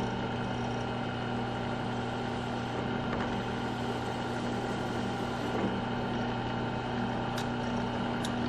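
Craftsman 3/4 hp bench drill press motor running steadily, a low even hum.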